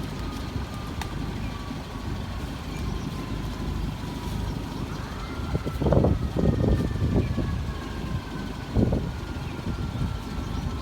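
Garbage truck running, with a thin high whine that slowly drops in pitch. The truck swells to louder rough surges about halfway through and again near the end.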